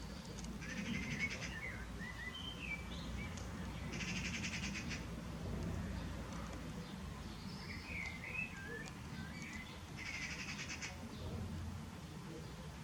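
Small birds chirping: scattered short twittering chirps, with three brief bursts of rapid buzzy chatter about a second in, around four seconds in and around ten seconds in. A steady low hum runs underneath.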